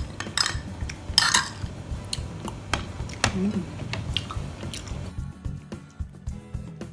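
Metal spoon clinking and scraping on a plate, and a spoon laid down on a plastic tray, with close-up chewing and a short "mmm" hum about halfway. Background music comes up near the end.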